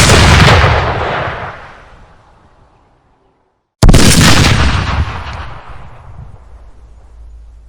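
Two heavy gunshots about four seconds apart, each a sudden sharp bang followed by a long echoing tail that dies away over a few seconds. After the second shot, a low rumble lingers to the end.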